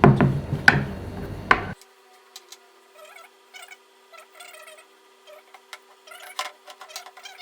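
Light clicks and small taps from handling a DJI Ronin-S camera gimbal while its motor arm is adjusted to the position markings. The clicks are sharper and come with a voice in the first second and a half, then turn quiet and scattered over a faint steady hum.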